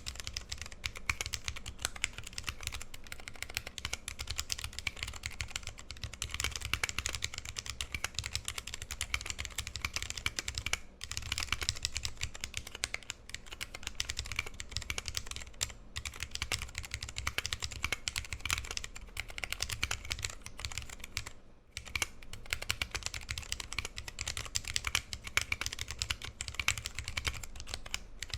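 Continuous typing on a 60% mechanical keyboard with vintage brown Alps switches lubed with PTFE, 55 g lubed springs, a brass plate and PBT keycaps: a steady stream of keystrokes broken by a few short pauses, around 11 s, 16 s and 22 s.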